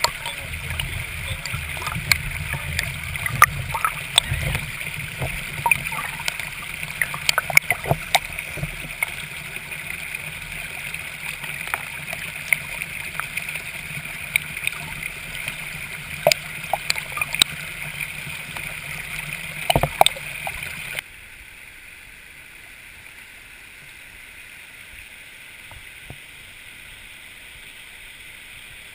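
Shallow creek water rushing over rocks close to the microphone, with many sharp clicks and splashes while a remote-control scale pickup truck crawls through the water. About two-thirds of the way through it cuts suddenly to a quieter, steady stream.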